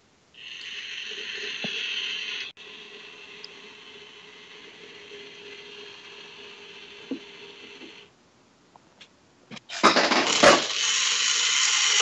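Claw machine gantry motors running in short bursts with a whirring of gears, heard through a video call. A louder run comes in the first couple of seconds, then a quieter steady hum. After a few clicks, another loud run starts near the end.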